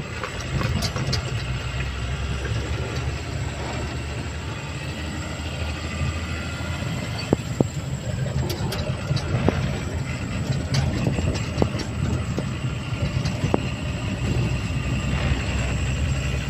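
Tipper truck heard from inside its cab as it drives on a rough dirt road: a steady low engine drone, with scattered knocks and rattles as the cab jolts over the bumps.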